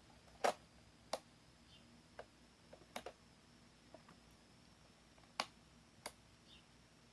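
Scattered sharp clicks and taps, like small hard parts being handled, at irregular intervals with the loudest about half a second in.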